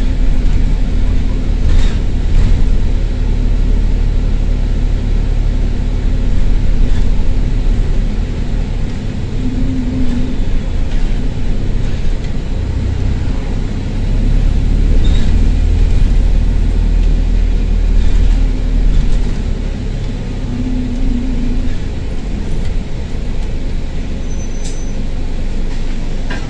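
Bus engine heard from inside the saloon while the bus is under way, its loud exhaust note the sign of a burst turbo or exhaust. The engine note swells and eases as the bus accelerates and slows.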